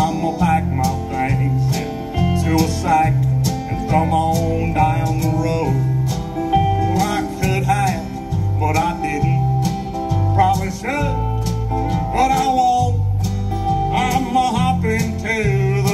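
Live country band playing an instrumental passage: bass and drums keep a steady beat under electric and pedal steel guitar, with a lead line that bends and slides in pitch.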